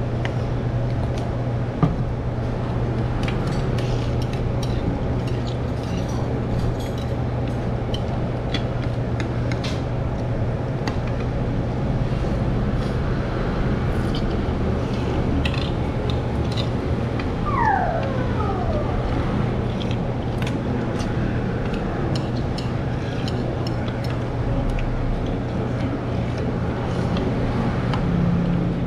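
Steady low hum of a small noodle shop's background, with scattered light clicks and clinks of spoons and chopsticks against soup bowls. About two-thirds of the way through there is a brief falling whine.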